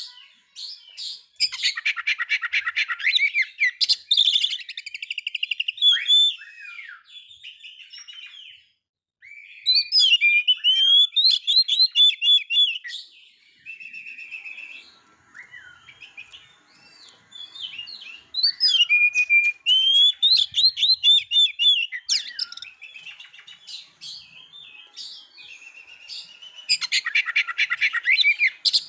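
Male Oriental magpie-robin singing loudly in four bursts of a few seconds each, mixing rapid buzzy chattering runs with clear whistled phrases, with softer scattered notes between the bursts.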